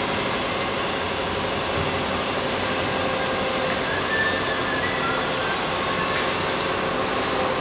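Loud, steady machine noise: an even rumble and hiss, with a few faint whistling tones about halfway through.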